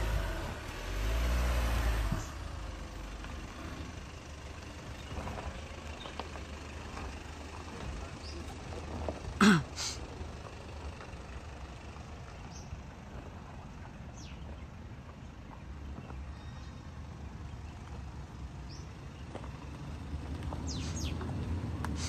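An off-road SUV's engine running in a low, uneven rumble, louder in the first two seconds and again near the end, with one short sharp sound about nine and a half seconds in and a few faint chirps.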